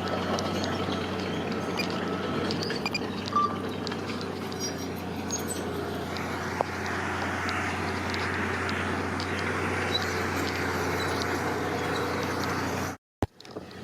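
Heavy diesel construction machinery running steadily: a low, even engine hum with scattered small knocks and clicks. The sound drops out for a moment near the end.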